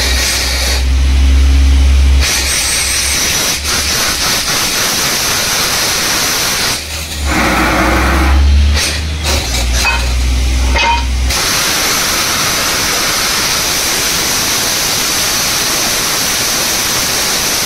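Borewell drilling rig at work: a steady hissing rush of air and water blowing out of the bore over the low drone of the rig's engine. The engine drone stops about eleven seconds in, leaving only the rush.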